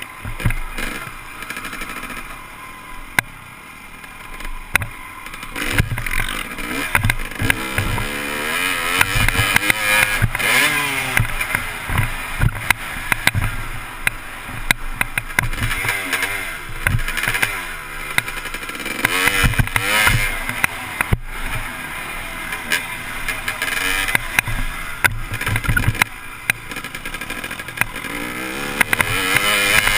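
Motocross dirt bike engine revving up and dropping back repeatedly as the rider accelerates and shifts around the track, easing off for a few seconds near the start. Wind rushes over the helmet-mounted camera, with sharp knocks as the bike hits bumps.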